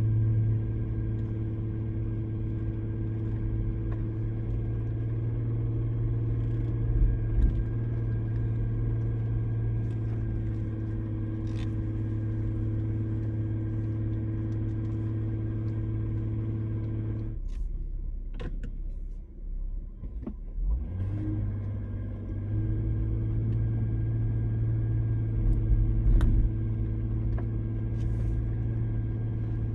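Off-road vehicle's engine idling steadily, a low even hum. It drops out for about three seconds a little past the middle, then resumes.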